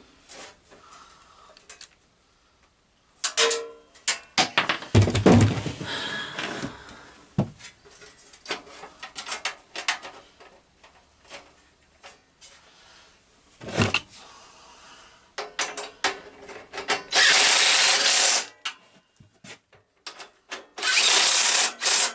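Tools working on a garden tractor: scattered metal clinks and knocks, then two dense buzzing bursts of about a second and a half each near the end, as a fastener is tightened.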